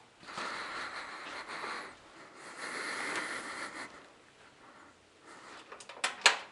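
A person breathing close to the microphone, two long breaths, followed by two sharp clicks near the end, the second the louder.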